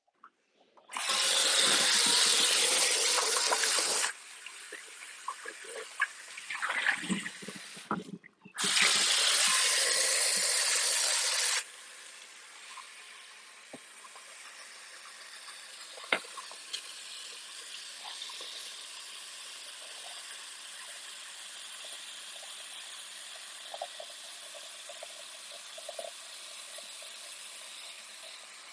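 Kitchen sink faucet running in two spells of about three seconds each as a cooking pot is rinsed out and filled with water, with the pot clattering in between. After that comes a faint steady hiss with a few light knocks.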